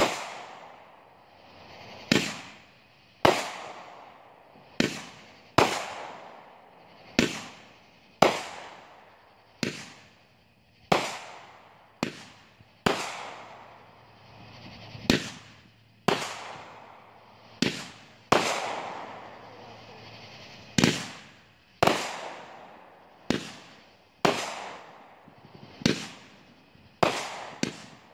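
Aerial fireworks exploding one after another: more than twenty sharp bangs at uneven intervals of about a second, each trailing off in a fading echo and crackle.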